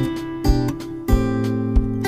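Background music: acoustic guitar over a steady beat, with a low drum thump about every two-thirds of a second.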